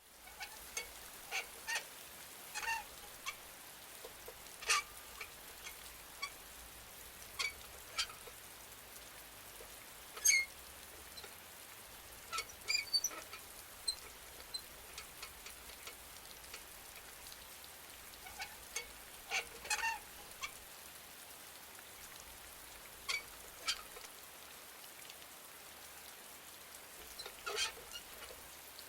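A swing creaking as the wind moves it: short, irregular squeaks, often two close together, over steady rain.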